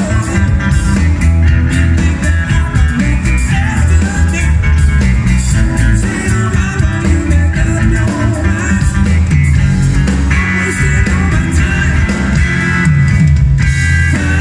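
Live band playing an instrumental passage on electric guitar, electric bass, drums and keyboards, with a strong bass line and steady beat.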